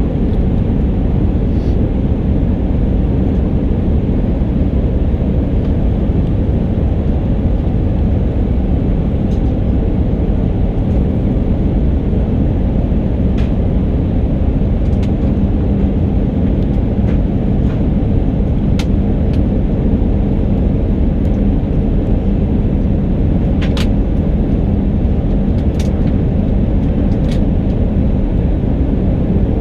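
Steady cabin noise inside an Airbus A319 heard from a window seat: a constant low rumble of engines and airflow, with a faint steady hum and a few small clicks.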